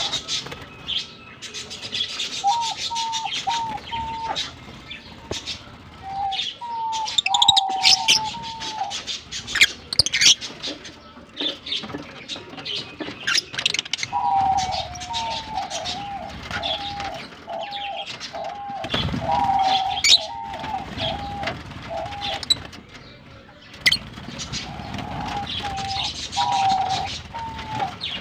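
Lovebirds chattering with many sharp, high chirps. Under them a lower bird call repeats in runs of short notes, the longest a string of about nine notes around the middle.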